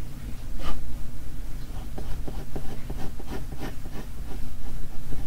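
Graphite pencil scratching on drawing paper in a quick series of short strokes as lines are sketched, over a steady low hum.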